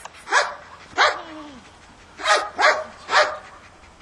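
A dog barking five times in short, sharp barks: two about a second apart, then three in quick succession about two seconds in.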